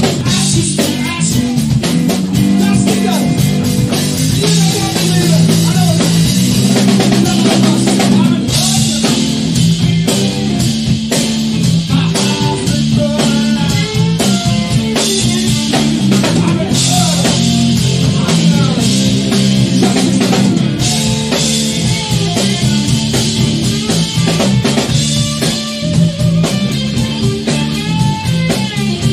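Three-piece rock band playing live: electric guitar, electric bass and drum kit, loud and continuous.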